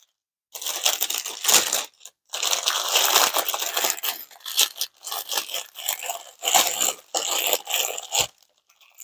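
Clear cellophane gift bag crinkling as it is handled and shaped around a gift, in uneven spells with brief pauses. A soft knock near the end.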